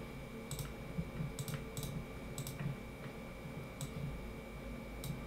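Computer mouse clicking: about five faint, sharp clicks at irregular intervals, two of them in quick succession about a second and a half in.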